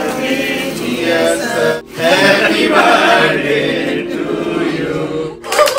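Several voices singing a song, broken by two brief gaps, about two seconds in and near the end.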